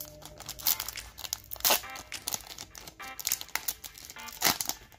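A foil Pokémon card booster pack being torn open and crinkled by hand: a run of sharp crackling rips, loudest about a second and a half in and again near the end.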